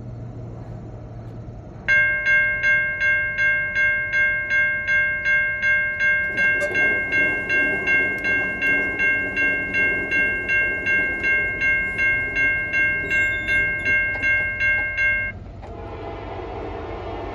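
Railroad grade-crossing warning bell ringing at a little over two strokes a second as the crossing activates, falling silent about 15 seconds in once the gate arm is down. Beneath it and after it, the approaching train, with a train horn sounding near the end.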